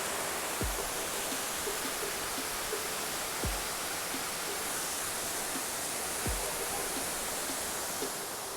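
Steady rushing of a waterfall, with four low thumps about three seconds apart.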